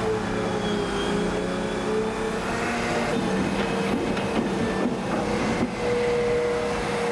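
Excavator engine running steadily while digging, its pitch wavering a little partway through.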